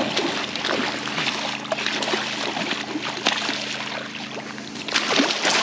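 Water splashing and trickling, with many small crackling splashes over a steady low hum; it grows louder about five seconds in.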